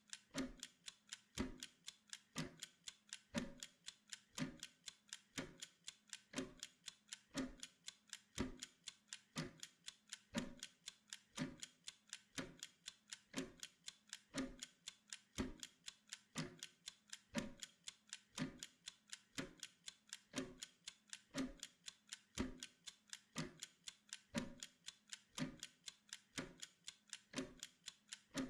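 Steady clock-like ticking, about two sharp ticks a second, keeping an even rhythm.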